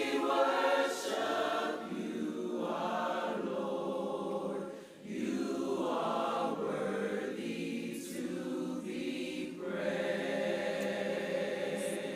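A choir singing a slow worship song in sustained, held chords, with a short break between phrases about five seconds in.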